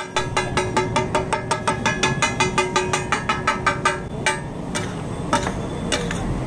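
A metal spatula strikes a large flat iron griddle (tawa) in a fast, even rhythm of about seven strikes a second, and the griddle rings under the blows. After about four seconds the rhythm breaks into a few scattered strikes and scrapes.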